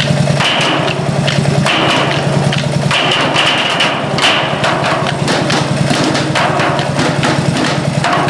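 Wooden drumsticks beating on empty steel oil drums: a fast, dense rhythm of hard strikes from several players at once.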